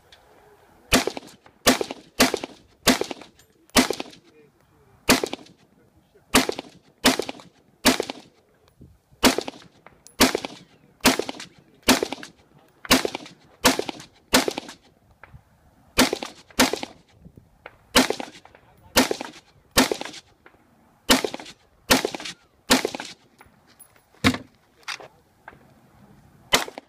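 A long string of single gunshots from a semi-automatic AR-style rifle, spaced about half a second to a second apart with brief pauses between target groups. Near the end come a few shots from a Heckler & Koch VP9 9mm pistol.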